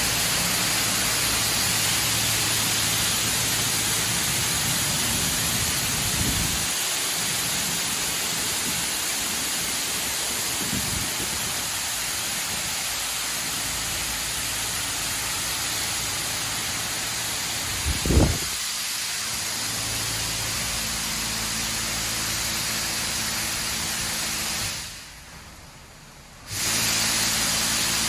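Superior Sidetrac 700 touch-free car wash spraying high-pressure water over a car: a steady hiss with a low machine hum and a few dull knocks, the loudest about 18 seconds in. Near the end the spray cuts out for about two seconds, then starts again.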